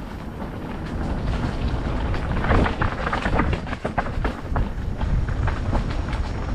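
Mountain bike riding fast down a rough dirt trail, with wind rumbling on the microphone and many knocks and rattles from the tyres and bike over the ground. It grows louder over the first second or two as it picks up speed.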